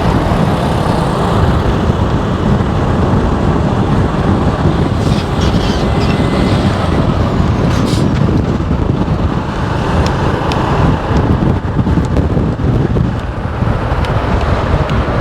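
Riding on a motorbike: steady wind buffeting on the microphone over the running engine and road noise.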